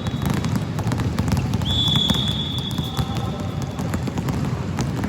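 Basketballs bouncing on a court, many irregular thuds over a steady hall rumble, with a high steady tone held for about two seconds starting a third of the way in.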